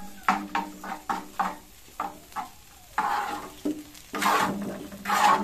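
A spoon scraping leftover dal out of a bowl onto a hot iron tawa in short, quick strokes, then the dal sizzling as it is stirred and spread on the griddle, louder and longer from about three seconds in, over a low steady hum.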